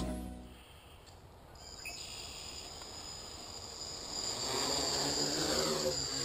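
A hexacopter's six electric motors spinning with a thin, high whine. About four seconds in they rise in pitch and loudness as it throttles up and lifts off.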